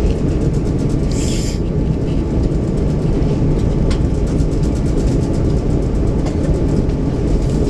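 Jet airliner cabin noise as the aircraft rolls along the runway: a steady loud rumble of engines and wheels, with faint regular knocks from the wheels over the pavement. A short hiss comes about a second in.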